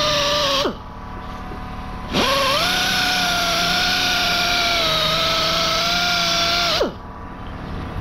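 Mini pneumatic sander with a 320-grit disc sanding kerb damage on an alloy wheel rim, a steady high whine. It stops under a second in with a falling pitch, starts again about two seconds in, runs for about five seconds and winds down near the end. This is the second, finer pass that smooths out the coarser sanding.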